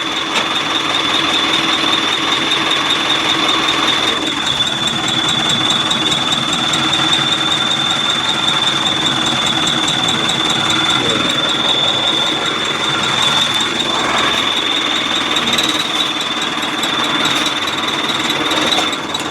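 Tractor engine running with a bolt-on turbo whistle gadget on its exhaust, giving one steady high-pitched whistle over the engine noise.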